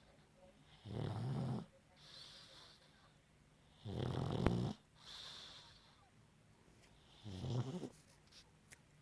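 A sleeping pug snoring: three loud snores about three seconds apart, with a softer, hissy breath after each of the first two.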